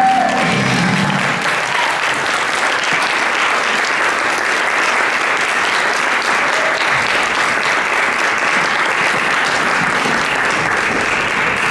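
Audience applauding steadily at the end of a dance routine, the last notes of the music dying away about a second in.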